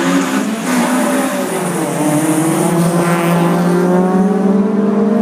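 Loud car engines running, their notes climbing slowly over the few seconds, with more than one engine note heard at once over a hiss of noise.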